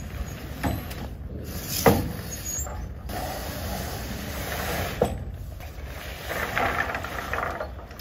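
An Idoogen A10 Max pop-up tent being collapsed and bundled up: its fabric rustles and crumples, with sharp clicks from the frame, the loudest about two seconds and five seconds in.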